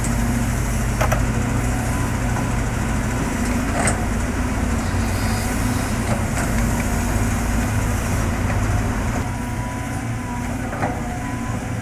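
Heavy diesel engine of construction machinery running steadily, with a few sharp knocks: about a second in, near four seconds and near eleven seconds.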